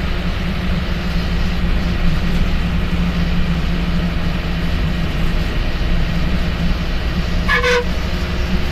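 Bus diesel engine running steadily under way, a loud drone heard from inside the driver's cabin, with one short horn toot near the end.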